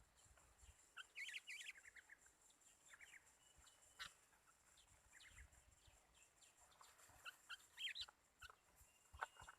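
Faint, scattered chirps and short calls of small songbirds, some sweeping in pitch, coming in loose clusters.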